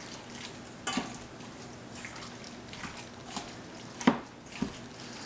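Cubed chicken breast in a spice marinade being stirred with a spoon in a stainless steel mixing bowl: soft, wet squelching with a few sharp knocks of the spoon against the bowl, the loudest about four seconds in.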